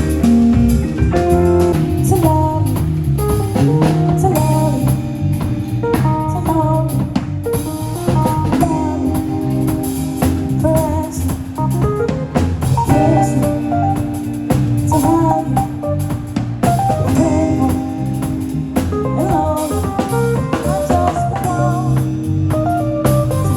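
A live band playing an instrumental passage: drum kit with guitar and other instruments, the lead line moving over held notes.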